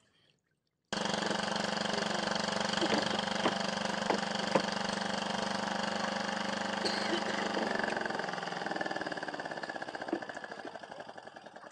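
An engine running steadily. It starts abruptly about a second in and fades away gradually over the last few seconds.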